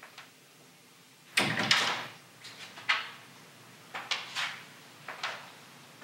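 A string of short knocks and scrapes of things being handled, a drawer or door among them. The loudest comes about a second and a half in, followed by several smaller ones.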